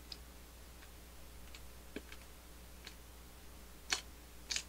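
Faint, sharp clicks scattered irregularly, about eight in all, the loudest two near the end, over a low steady hum.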